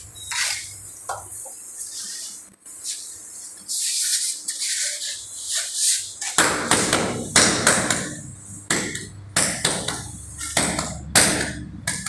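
A steel trowel scrapes and spreads cement mortar over the back of a ceramic wall tile. About six seconds in, the tile is pressed onto the wall and patted repeatedly by hand, a string of sharp taps that beds it into the mortar.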